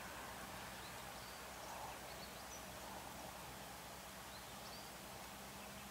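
Faint roadside ambience: a low steady hum of distant trucks on the highway, with a few short, faint bird chirps.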